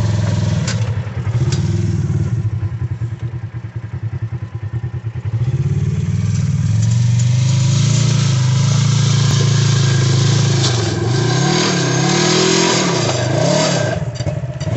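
Polaris RZR side-by-side's engine revving hard while its tires spin in loose dirt, the machine stuck on a slope with a flat, dislodged tire. The revs are held high for a few seconds past the middle, then rise and fall about once a second.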